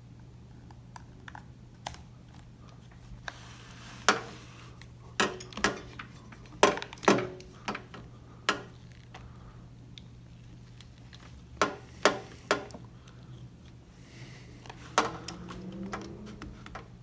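Diagnostic cable plugs and connectors being handled and plugged together: a string of irregular sharp clicks and clatter, over a steady low hum.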